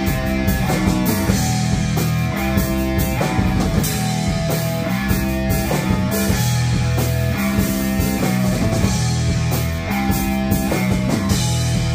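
Live rock band playing an instrumental passage: two electric guitars strumming chords over a drum kit with regular drum and cymbal hits.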